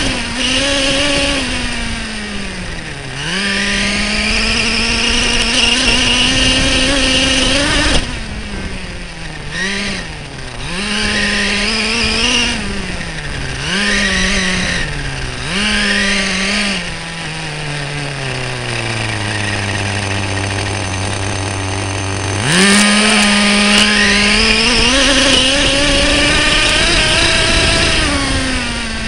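Small nitro glow engine of an RC monster truck revving up and down as it drives, heard close from a camera mounted on the truck. Partway through it gives several quick throttle blips, then drops to a steady idle for a few seconds before revving hard again.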